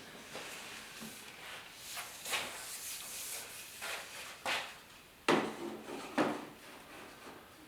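LED light tubes being handled and fitted into the clips of a shop light fixture: a series of knocks, scrapes and clicks, the sharpest about five seconds in and again about a second later.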